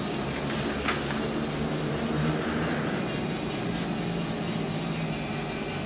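LEGO Mindstorms NXT servo motor running steadily as the printer's rollers feed in a sheet of paper.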